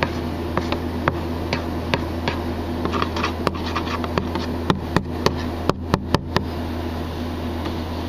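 Light clicks and taps of a metal probe and a clear plastic tray being handled, with a cluster of sharper taps about five to six and a half seconds in, over a steady low hum.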